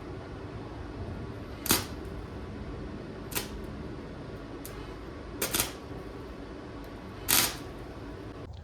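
Four sharp clicks or knocks, about two seconds apart, the third one doubled, over a steady low hum.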